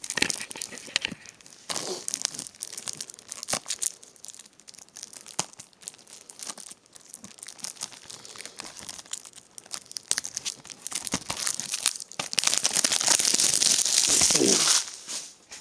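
Plastic shrink-wrap being torn and peeled off a Blu-ray case, crackling and crinkling in fits and starts, with a longer, louder stretch of tearing near the end.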